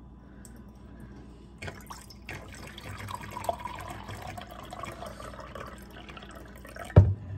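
Water pouring from a plastic filter pitcher into a mug, a steady trickling stream. A short thump near the end.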